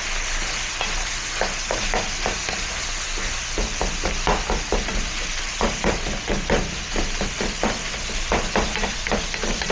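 Ground beef and mushrooms frying and sizzling in a pan with a steady hiss, while a utensil stirs and scrapes, clicking irregularly against the pan.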